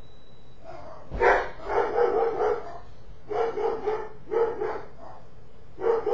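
A dog barking in quick runs of several short barks, starting about a second in and recurring in clusters.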